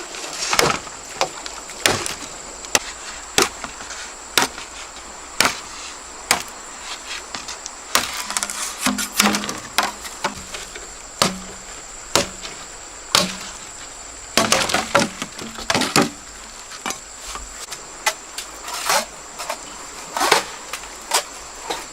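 Repeated sharp chopping strikes on wood or bamboo, irregular, roughly one a second with quick flurries now and then, over a steady high-pitched insect drone.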